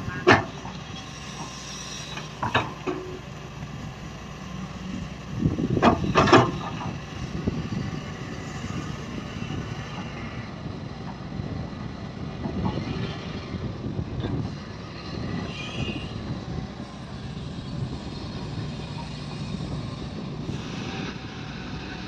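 Matador Shantui tracked excavator's diesel engine running steadily under digging load, with sharp knocks from the bucket and linkage at the very start, about two and a half seconds in, and a louder pair around six seconds in.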